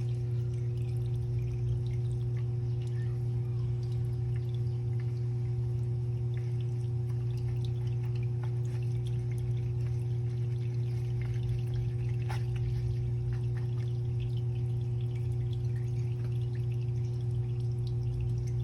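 A steady low electrical hum with fainter higher overtones, unchanging throughout, with a few faint light clicks over it.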